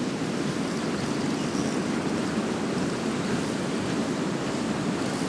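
Fast-flowing river water rushing steadily, an even, unbroken noise.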